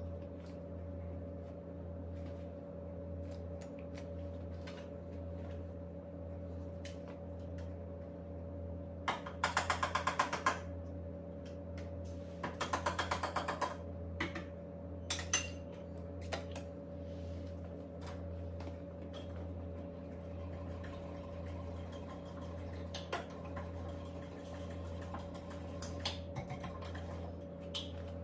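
A utensil clicking rapidly against a ceramic cup in two bursts of about a second and a half each, about nine and twelve seconds in, with scattered single knocks. A steady low hum runs underneath.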